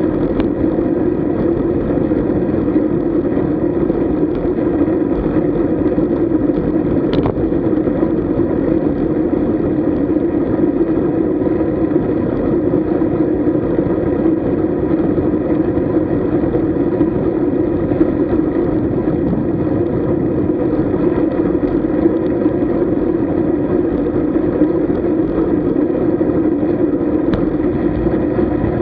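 Steady rush of wind and road noise from travelling along the road on a group road-bike ride, with one sharp click about seven seconds in.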